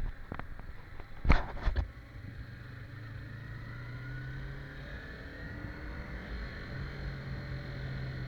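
Yamaha MT-25's 250 cc parallel-twin engine running steadily with a low hum. A few sharp knocks sound about a second in.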